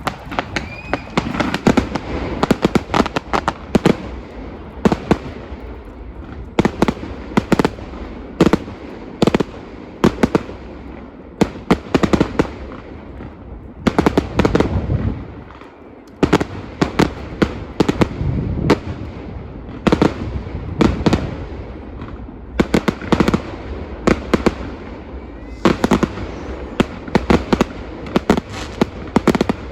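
Fireworks display going off: rapid volleys of sharp bangs and crackles, with a short lull about halfway through.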